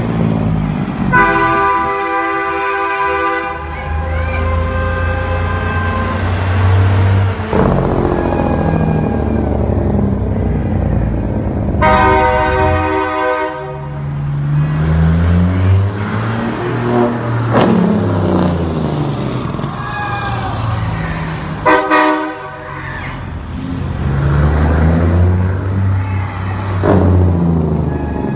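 Diesel semi trucks passing and pulling away, their engines rumbling and rising and falling in pitch through the gears. Truck air horns blow three times: a long blast about a second in, another around twelve seconds in, and a short one about twenty-two seconds in.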